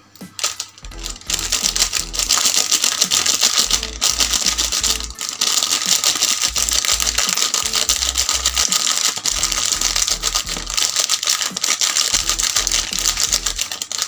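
A foil powdered-milk sachet crinkling and crackling as it is squeezed and shaken to empty it, a dense rapid rustle that starts about two seconds in. Background music with a bass line runs underneath.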